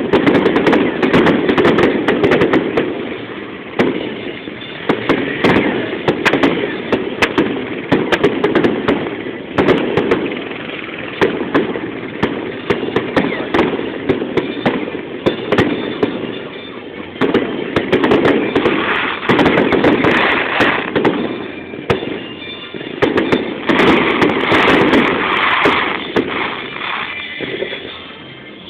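Fireworks display: a dense, continuous barrage of bangs and crackling that swells in waves every second or two.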